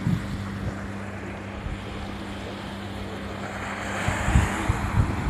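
Wind gusting on a phone's microphone, with a rushing hiss that swells about four seconds in and a steady low drone underneath.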